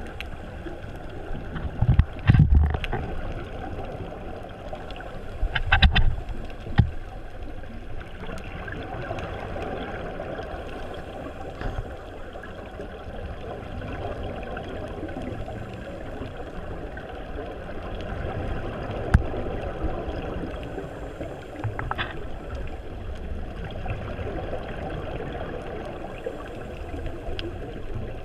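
Steady muffled underwater noise recorded on a scuba dive, with loud bubbling bursts from a diver's exhaled regulator breath about two seconds in and again around six seconds, and a few sharp clicks later on.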